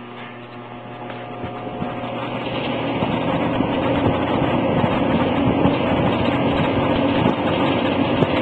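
Vintage Signal 16-inch all-steel box fan switched on at high speed: a motor hum gives way to a rush of air that builds over the first three or four seconds as the blades come up to speed, then runs steadily.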